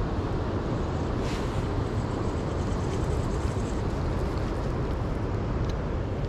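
Steady low outdoor rumble with no clear events.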